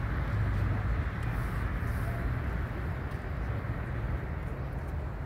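Steady, even outdoor background rumble, mostly low in pitch, with no distinct events standing out.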